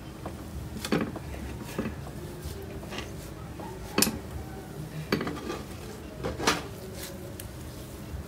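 Hands kneading, pressing and stretching fluffy pink cloud slime, giving a series of sharp sticky pops and clicks, about five, the loudest near the middle.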